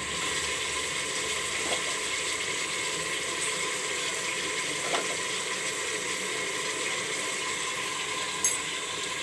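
Chopped tomatoes and onions sizzling in hot oil in a pressure cooker, a steady wet hiss.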